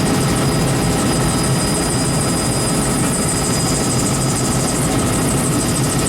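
Helicopter running steadily: a loud, constant rotor and engine noise with a thin high-pitched whine held on top.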